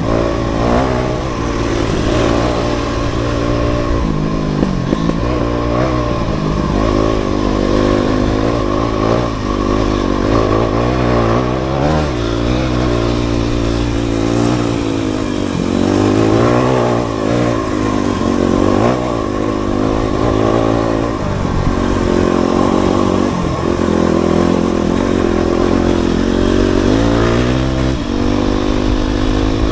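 Dirt bike engine heard from on board while riding a dirt trail, its revs rising and dropping again and again as the throttle is worked.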